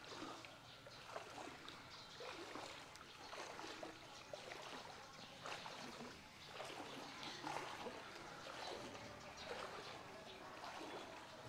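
Faint trickling, flowing floodwater.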